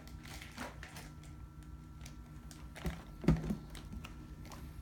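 Scattered light clicking and tapping over a steady low hum, with two louder knocks about three seconds in.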